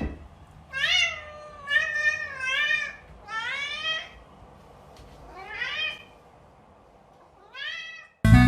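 A cat meowing repeatedly, about six separate meows, each rising and falling in pitch. Loud music cuts in just before the end.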